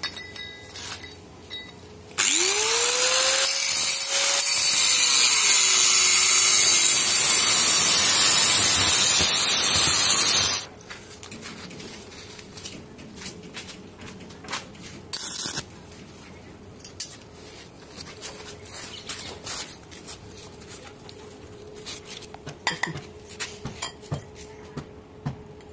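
Angle grinder with a thin cut-off disc starting with a rising whine, then cutting stainless steel railing tube for about eight seconds, a loud harsh hiss that cuts off suddenly. After it, light clicks and taps of steel pipe and elbow fittings being handled.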